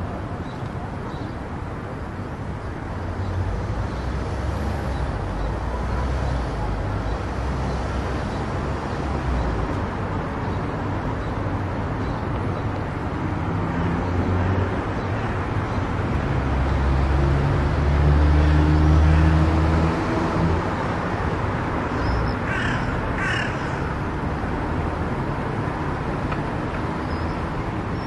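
Steady road and tyre noise of a car travelling at speed on a highway. A low drone swells to its loudest a little over halfway through, then eases off. Two short higher-pitched sounds come close together about three-quarters of the way in.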